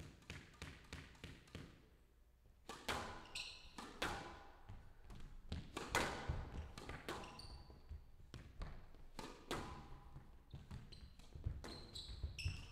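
Squash ball bounced on the court floor several times at an even pace before the serve, then after a short pause a rally: sharp racket strikes and the ball smacking the walls at irregular intervals, with shoes squeaking on the court floor now and then.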